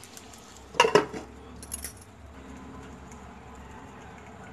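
Glass pan lid with a metal rim set down onto the pan: a sharp clink with a short ring about a second in, then a lighter clink just under a second later. The pan is being covered to trap the smoke from oil poured on a live coal.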